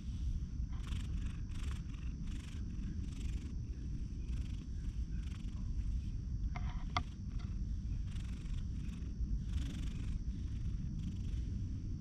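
Grey-and-white tuxedo cat purring steadily while a hand strokes its head, with soft brushing sounds of fur against the hand recurring about twice a second. A brief high chirp comes about seven seconds in.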